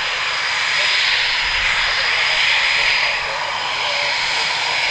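Eurofighter Typhoon's twin EJ200 jet engines at taxi power: a steady high-pitched whine over a loud hiss.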